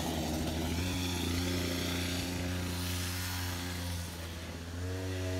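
Small dirt bike engine running at a steady pitch. It drops a little in level about four seconds in, then comes back up near the end.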